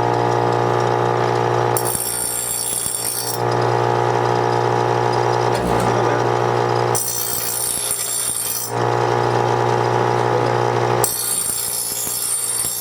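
6-inch Hart bench grinder running with a steady motor hum, as the steel mower blade is pressed to the wheel three times, each pass a grinding rasp of a second and a half to two seconds, taking a burr off the cutting edge.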